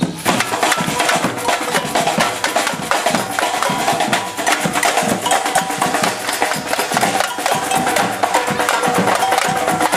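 Brazilian samba percussion troupe playing a fast, driving rhythm on drums with sharp wood-block-like clicks over the top.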